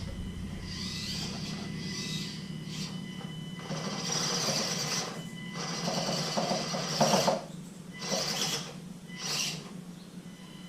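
Axial SCX24 1/24-scale RC crawler's small electric motor and drivetrain whining in stop-start bursts as it crawls up an incline, throttle blipped on and off.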